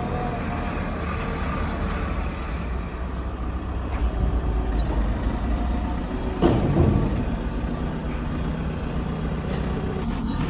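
Backhoe engine running steadily at a low drone, with a short knock about four seconds in and a louder clunk about six and a half seconds in.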